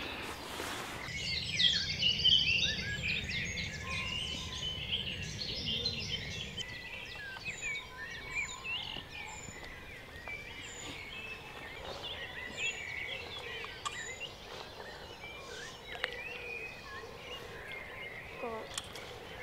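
Dawn chorus: many songbirds singing and calling at once, with a high thin call repeated about once a second through the second half. A low rumble runs under the first six seconds or so.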